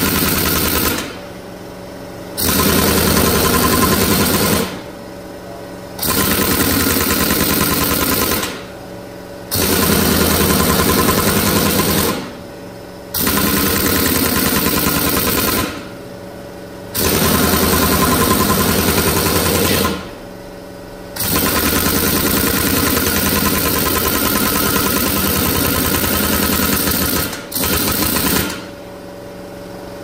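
A large air impact wrench hammering in repeated bursts of a few seconds each, with short pauses between them, as it works a seized tractor rear wheel hub loose on its axle.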